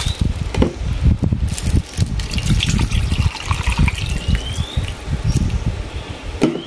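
Water poured from a plastic bottle, gushing and splashing into a stainless-steel bowl of water that holds bagged frozen meat.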